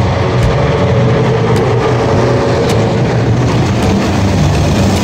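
Narrow-gauge diesel locomotive engine running with a steady low drone as the locomotive draws its passenger wagons slowly alongside a station platform.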